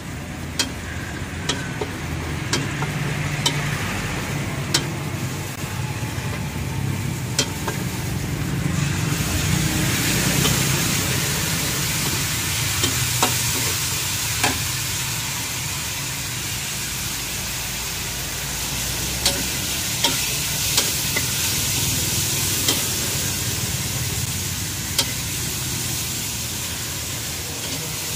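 A metal spatula scrapes and clanks against a wok during stir-frying, with sharp strikes every second or so over the sizzle of frying food. The sizzle grows louder about nine seconds in. A steady low rumble runs underneath.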